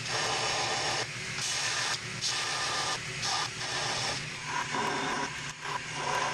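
Shop-built 2x72 horizontal belt grinder running, with a flat steel bar pressed against the moving abrasive belt in a string of short grinding passes. Each pass is a hiss of belt on steel over the steady hum of the motor and belt.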